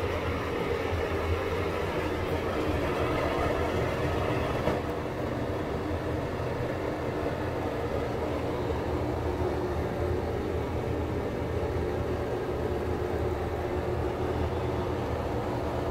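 Old Nutone ceiling exhaust fan running steadily on a cheap replacement motor: an even motor hum with air noise.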